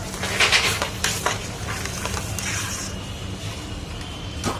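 Cooking at a street-food stall: a metal ladle stirring and scraping in a pan of frying food, with sizzling. A few scraping strokes come in the first second or so, then a steadier sizzle, with a sharp click near the end.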